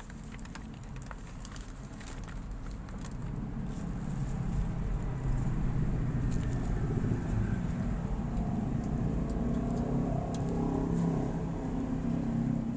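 A motor vehicle engine running close by, swelling over the first few seconds and then holding steady, with scattered light clicks.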